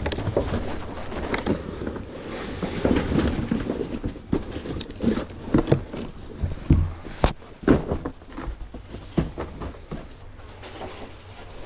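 Handling noise: a cardboard box rustling and scraping as it is lifted and shifted close to the microphone, with clothing brushing against it. Irregular sharp knocks and taps run throughout, with several loud knocks a little past halfway.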